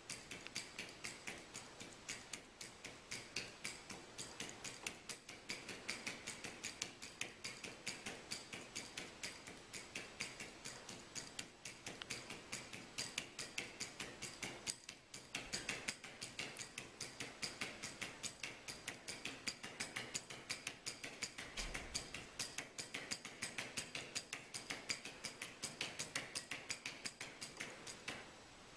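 A flamingo's feet stepping on a hard floor as it marches about: quick, regular clicking and tapping steps, about three to four a second.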